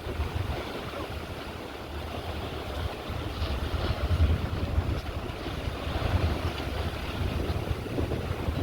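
Wind buffeting the microphone outdoors: an uneven, gusty low rumble with a hiss of open-air noise, and no clear engine or horn tone.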